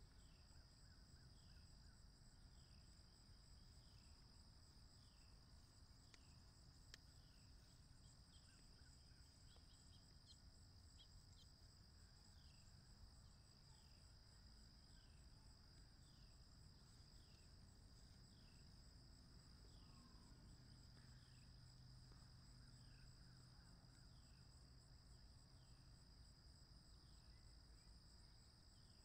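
Faint, steady insect chorus from the summer grass: a continuous high trill, with a short falling chirp repeating about once a second.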